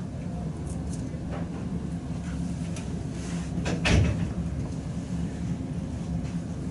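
Toenail nippers cutting a toenail: a few faint clicks and one sharp, louder snap about four seconds in, over a steady low hum.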